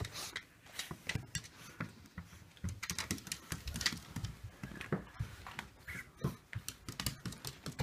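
Irregular light taps and pattering of a Yorkshire terrier's feet, shod in small dog shoes, taking unsteady steps across a wooden floor and rug.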